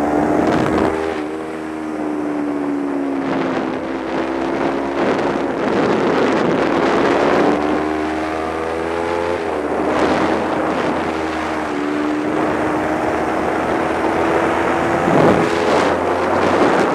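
Kawasaki Ninja 250's parallel-twin engine revving through corners on track, its pitch climbing under throttle and dropping on shifts and braking several times. Wind rushes over the microphone.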